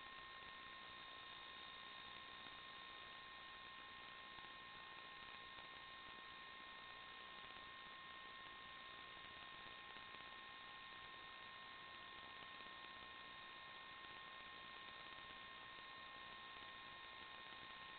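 Near silence: a faint steady electronic hiss with two thin, unchanging whine tones, the noise floor of an analog FPV video recording. No motor or wind sound is heard.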